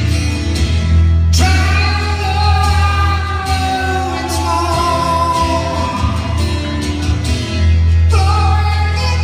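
A solo singer accompanying themselves on acoustic guitar in a live concert, singing long held notes over the guitar with a strong low bass through the PA. Heard from far back in a large hall.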